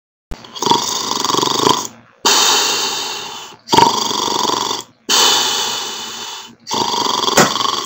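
A man snoring in his sleep: five rasping snore breaths in and out, each about a second to a second and a half long, with short pauses between them.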